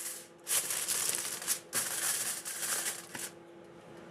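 Aluminium foil crinkling as it is folded over to cover the fish, in rustling bursts that stop about three seconds in, over a faint steady hum.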